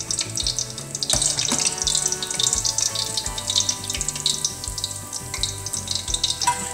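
Breaded eggplant polpette deep-frying in a pan of oil: a steady, dense crackling sizzle. Soft background music plays under it.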